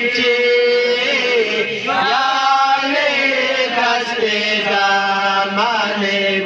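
Young man singing a devotional qasida into a handheld microphone, unaccompanied, in long held notes that waver and slide between pitches.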